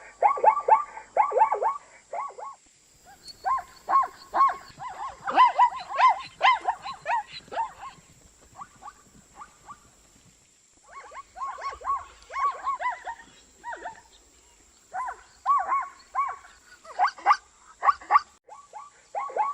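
Zebra calling: bouts of quick, repeated barking yelps, several in a row, broken by pauses of about a second.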